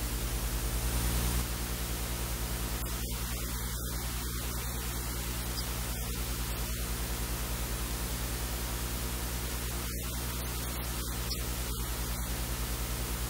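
Steady electrical hiss over a low mains hum, swelling slightly about a second in; no cooking sounds stand out.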